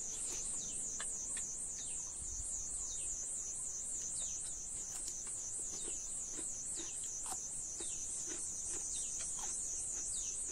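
Insect chorus: a steady high-pitched buzz that pulses evenly a few times a second, with short falling chirps scattered through it.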